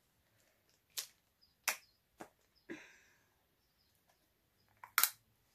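Plastic screw cap of a Gatorade G2 bottle being twisted open: a series of sharp plastic clicks as the cap turns and the tamper seal breaks, one followed by a short hiss, then a louder double click near the end.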